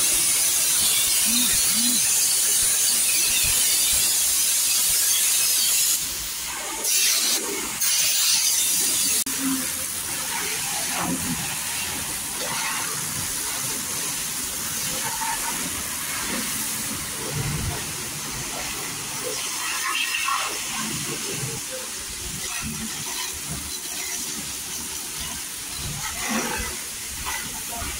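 A high-pressure spray hissing steadily, cutting off suddenly about six seconds in, then two short bursts; after that a quieter hiss with scattered small knocks, as in washing down a scooter at a service station.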